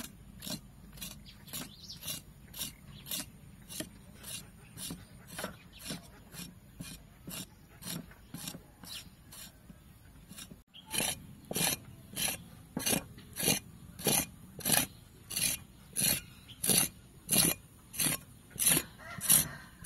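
A cleaver blade scraping along the skin of a raw oxtail on a wooden chopping board, in steady strokes about twice a second. The strokes get louder about halfway through.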